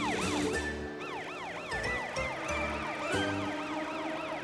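Cartoon police-car siren sound effect in a fast yelp, its pitch sweeping up and down several times a second, with two sweeps overlapping, over steady background music.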